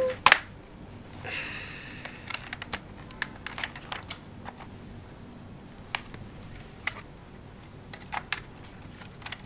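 Hard plastic clicks and light rattling from a Nerf blaster and its dart magazine as they are handled and the magazine is fitted in. The clicks are sharp and come at uneven intervals, with the loudest one just after the start.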